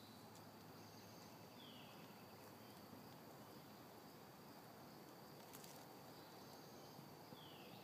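Near silence with a faint, steady high insect trill throughout, and two short falling chirps, one about two seconds in and one near the end.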